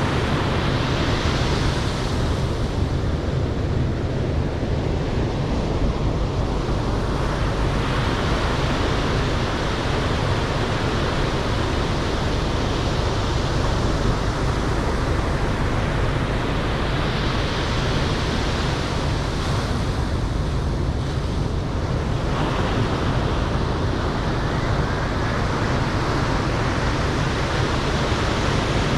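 Ocean surf breaking and washing up a sandy beach, a steady hiss that swells as waves wash in near the start and again about two-thirds of the way through, with wind rumbling on the microphone.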